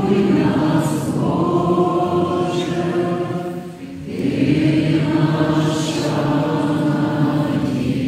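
Voices singing together in a slow liturgical chant, two long held phrases with a short break about four seconds in.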